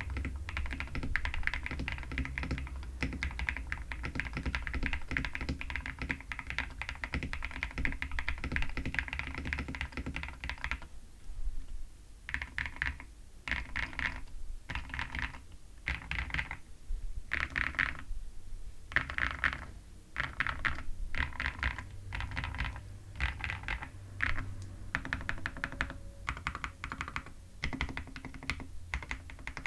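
Typing on an Akko 5075 mechanical keyboard fitted with Princess linear switches. The keystrokes come fast and continuous for about the first ten seconds, then in separate short bursts with brief pauses between them.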